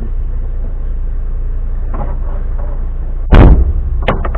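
Off-road vehicle's engine idling steadily, a low rumble heard from inside the cab. A loud thump about three seconds in, followed by a few light knocks.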